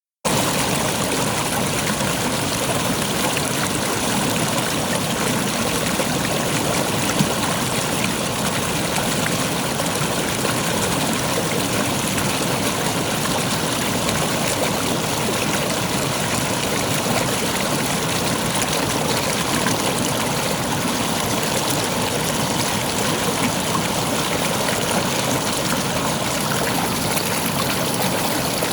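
River water flowing steadily, a continuous even rush of water over its bed.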